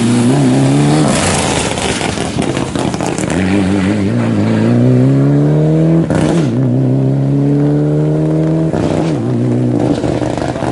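Mitsubishi Lancer Evolution rally car's turbocharged four-cylinder engine at full throttle. It comes off the throttle briefly, then accelerates away hard, the pitch climbing in runs with quick upshifts about six and nine seconds in.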